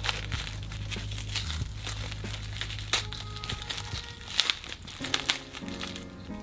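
Plastic film wrapper of a convenience-store onigiri crinkling and crackling as it is pulled open by hand, in a series of short crackles, over background music.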